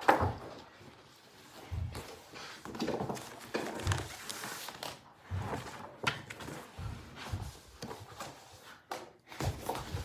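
Scattered low thumps and knocks, about a second or two apart, with a sharp knock at the start and a stretch of rustling a few seconds in.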